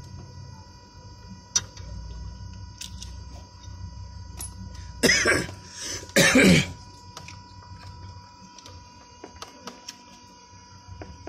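A person coughs twice, loudly, about five and six seconds in. Between the coughs come scattered light clicks of a socket wrench and metal parts being handled on a car engine.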